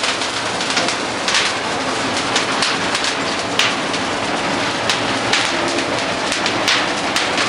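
Dry Christmas tree burning, engulfed in flames: a steady rushing noise with frequent sharp crackles and pops scattered throughout.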